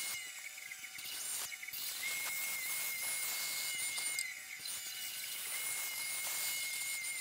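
Bandsaw rough-cutting an acrylic pickguard blank: a steady hiss of the blade through the plastic, with a thin high whine that comes in about two seconds in, drops out briefly, and returns.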